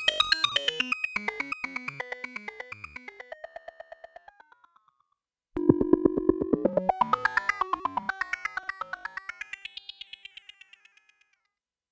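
Alesis Andromeda analog synthesizer playing a noisy audio-rate-modulated effect patch: a fast pulsing, bleeping tone that falls in pitch and fades away. After a pause, a second pulsing sweep starts suddenly, rises and falls in pitch, and fades out again.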